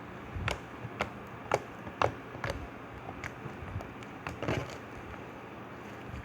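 Slime being pressed and poked by hand, making a run of short sticky pops and clicks about two a second that stop after about four and a half seconds.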